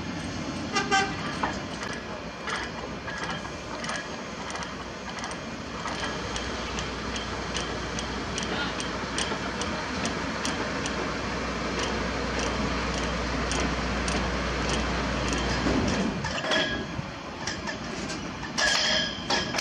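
Heavy truck running, with a constant clatter of metal rattling and knocking. A low engine drone comes in about six seconds in and stops about ten seconds later. Louder clanks follow near the end.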